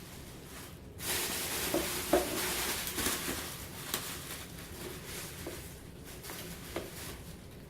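Packaging being handled during the unboxing of an electric scooter: crinkly rustling that starts about a second in, with several light knocks and clicks.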